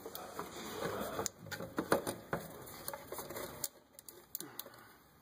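Plastic engine cover of a Cummins 6.7L turbo diesel being handled and lifted loose by gloved hands: an irregular scatter of light clicks and knocks.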